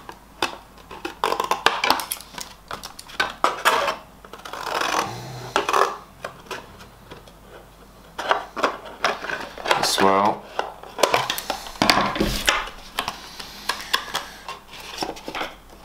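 Scissors snipping at the edges of a cardboard drink carton, a run of short sharp clicks and cuts, with the carton rustling and crinkling as it is turned in the hands.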